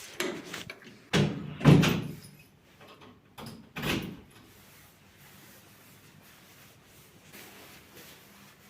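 Four or five short household knocks and bangs within the first four seconds, the loudest just under two seconds in, like a door or cupboard being handled.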